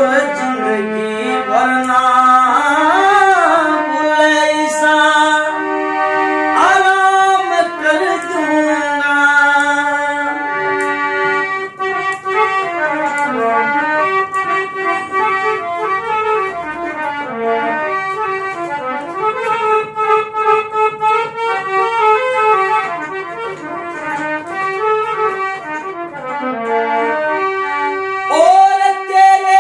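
Harmonium playing a quick, stepping melody, with a man singing a Haryanvi ragni over it in gliding, held notes at the start and again near the end.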